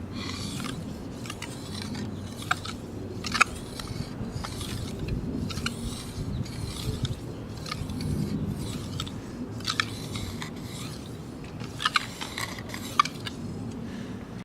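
Knife blade being stroked back and forth on a wet whetstone: a repeated rasping scrape, roughly one or two strokes a second, with a few sharp clicks.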